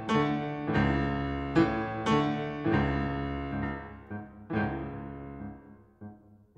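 Piano music: notes and chords struck and left to ring, growing softer and dying away near the end.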